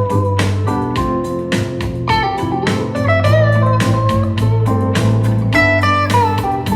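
Blues-rock style music with electric guitar over a steady beat and heavy bass, played back through portable Bluetooth speakers for a sound test.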